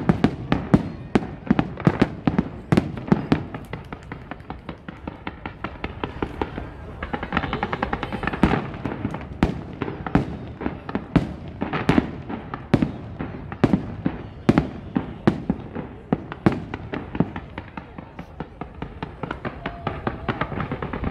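Fireworks display: aerial shells bursting in a dense, irregular run of sharp bangs, about two or three a second.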